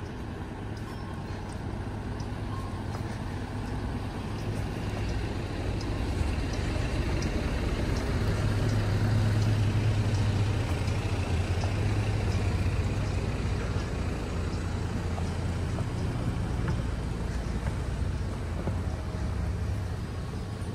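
Street traffic: a motor vehicle's low engine rumble builds to its loudest about nine to ten seconds in, then slowly eases off as it passes.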